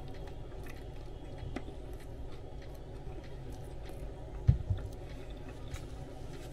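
A man chewing a mouthful of sub sandwich bread, small faint chewing clicks over a steady low background hum. A dull thump, the loudest sound, comes about four and a half seconds in.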